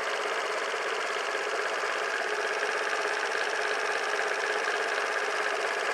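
Suzuki Let's 49cc four-stroke single-cylinder scooter engine idling steadily.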